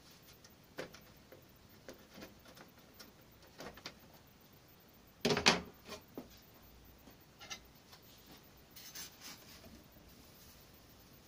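Clear plastic food-dehydrator trays being handled, giving light scattered clicks and knocks, with a louder clatter of plastic about five seconds in.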